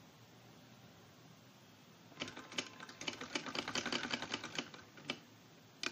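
Black, gold-decorated sewing machine stitching pleats into fabric: a short run of rapid clicking stitches starting about two seconds in and lasting a little over two seconds, then two single clicks near the end.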